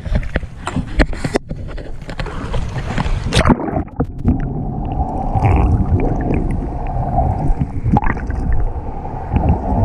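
Boat noise at sea: a low rumble with rushing water and wind, and a few sharp knocks in the first few seconds.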